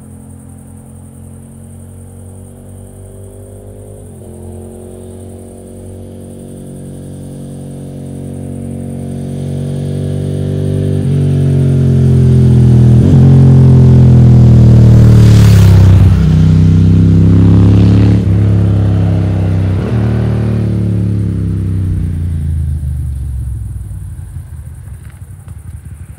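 1999 Ducati Monster 900S's air-cooled 900 cc L-twin running at idle through Termignoni silencers, a steady rumble. It grows louder toward the middle and fades again near the end.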